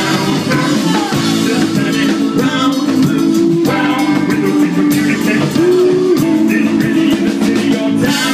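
Loud live band music: drum kit, electric guitar and keyboard playing under a singer holding sung notes.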